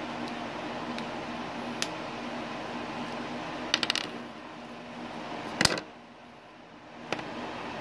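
Scissors snipping and small hard plastic clicks as a pink plastic dye tube is cut open: a few single clicks, a quick rattle of clicks about four seconds in, and the loudest sharp click a little before six seconds in.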